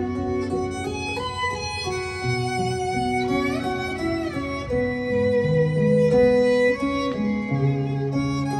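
Recorded music played back through a hi-fi system fed by an SMSL DO100 DAC, streaming from a phone over Bluetooth LDAC. Held melodic notes over a bass line, with a few sliding notes a little past the middle.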